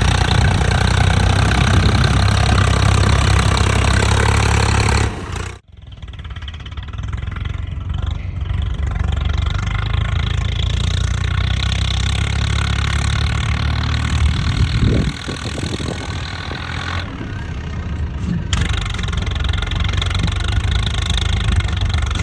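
Tractor engine running steadily. About five seconds in the sound cuts out abruptly, then comes back quieter and keeps running.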